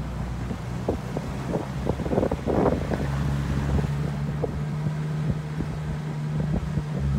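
Off-road vehicle's engine running steadily at low revs while driving down a rough dirt track, its note stepping up slightly about three seconds in. Frequent short knocks and rattles come from the bumpy track, with wind buffeting the microphone.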